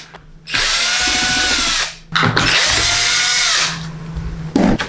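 Electric screwdriver running in two bursts of about a second and a half each, its motor pitch rising and then falling each time, while unscrewing a TV's back cover.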